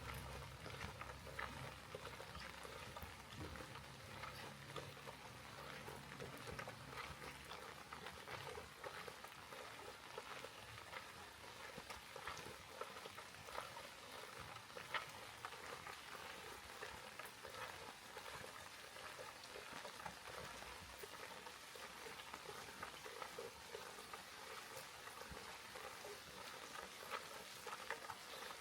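Light rain pattering, a dense, faint crackle of many small drops. A low hum sits underneath and fades out about seven seconds in.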